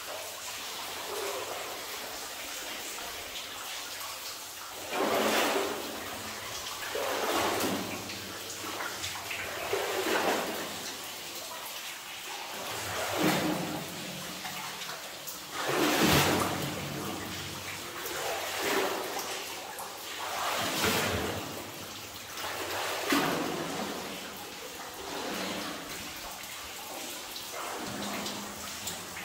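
Water sloshing and splashing around a person's legs as they wade through a flooded mine tunnel, swelling in surges every two to three seconds with each stride.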